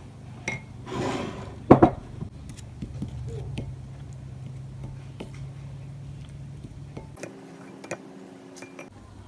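Wooden spoon stirring thick cupcake batter in a glass bowl, with wet scraping and small knocks of the spoon against the glass. There is one loud knock just under two seconds in.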